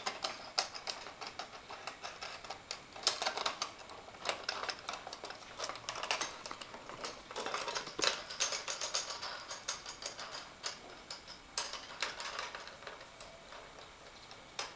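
Irregular clicks, taps and rustles of a Toyosaki AIO-220 indoor digital TV antenna and its cable being handled and fastened to a railing.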